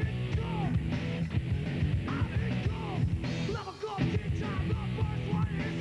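Punk rock song with a steady beat.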